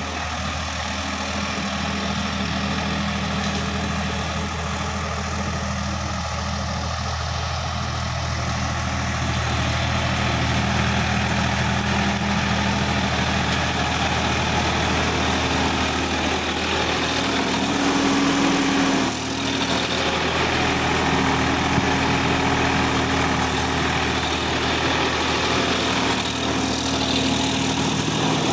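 Sonalika DI-50 tractor's diesel engine running steadily under load while pulling a rotary tiller through the soil, the tiller's blades adding a continuous churning noise.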